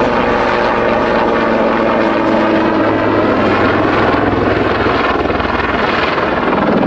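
Westland Lynx military helicopter flying a display pass, its rotor and twin turboshaft engines running loud and steady as it banks steeply.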